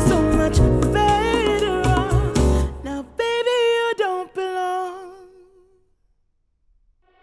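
A pop song with singing ends, played back through HIFIMAN Edition XS headphones and picked up by microphones. The bass and drums drop out about three seconds in, a last held note with vibrato fades away, there is a moment of silence, and the next track fades in near the end.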